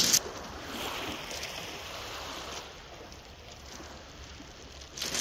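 Steady wash of the sea with light wind, easing off about halfway through.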